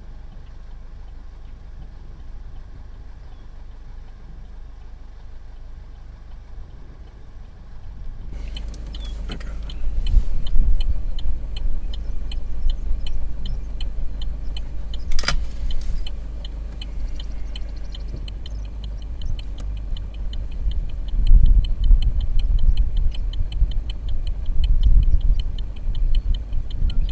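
Car interior noise while driving: a steady low road rumble that grows louder and fuller about eight seconds in, with a single sharp click midway and a fast, regular ticking through the second half.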